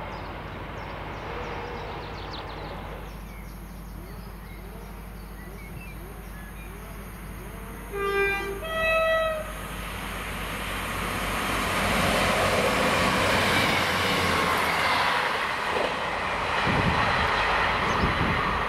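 Rumble of a departing freight train, then the two-tone horn of a Class 158 diesel multiple unit: a short low note followed by a higher one, about eight seconds in. After it, the Class 158's diesel engines and wheels grow louder as it approaches.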